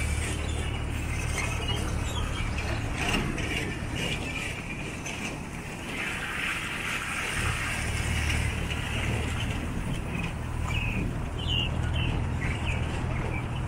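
Resort shuttle road train driving along: the tractor unit's engine drones low, and the open passenger carriages rattle. The engine hum eases off for a few seconds early on, then picks up again, and a brief hiss comes in about six seconds in.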